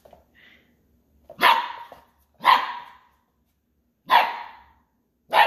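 Poodle puppy barking: four short, sharp barks with pauses of one to one and a half seconds between them, each fading quickly.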